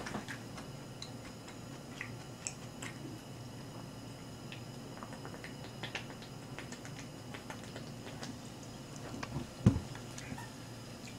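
Small clicks and handling noises of a plastic soda bottle being drunk from, with a single dull thump near the end as it is set down.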